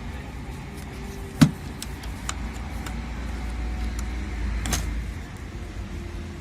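Steady low hum with lighter ticks, a sharp click about 1.4 s in and another near 4.7 s: the parts of a stand fan being handled and fastened during reassembly.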